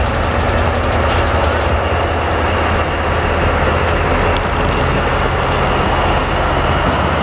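Diesel locomotive running on the track, a steady, loud engine drone with rail noise, with faint clicks now and then.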